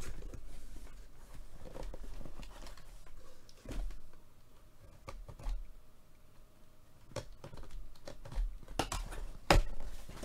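Corrugated cardboard shipping box being torn open by hand against strong security tape: scattered scrapes, rips and clicks of cardboard and tape, with crumpled kraft packing paper rustling. The handling is busiest at the start and again near the end, with a quieter stretch in the middle.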